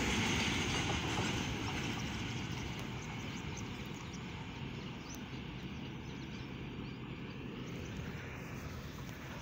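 Double-stack container goods train running away along the track, its wheel-and-rail rumble fading steadily as the tail of the train recedes.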